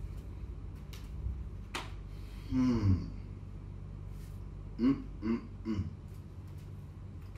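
A man's wordless vocal sounds: a breathy grunt falling in pitch about two and a half seconds in, then three short grunts in quick succession around five seconds in. A single sharp tap comes a little before two seconds in.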